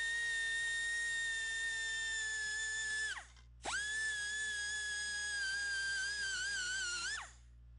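Pneumatic die grinder with a carbide burr whining at high speed as it gouges out a crack in a cast iron casting. It runs for about three seconds, spins down, then starts again, its pitch dipping and wavering under load shortly before it stops near the end.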